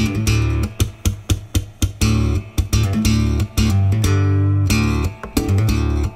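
Background music: a guitar track with a strong bass line and sharp regular beats.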